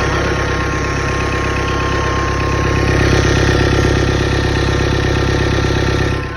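A 2014 Chevrolet Cruze's 2.0-litre four-cylinder turbodiesel running steadily, with a thin steady whine over the engine note. The owner diagnoses a bad turbocharger whose shaft is jammed. The sound drops off sharply near the end.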